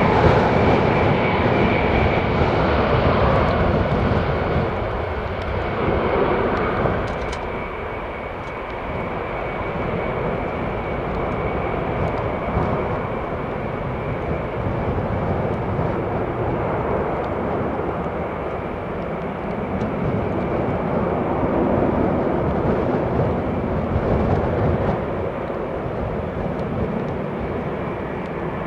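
Ilyushin Il-76TD's four jet engines running steadily at low power on the ground: a continuous rushing with a thin high whine held throughout, a little louder in the first few seconds.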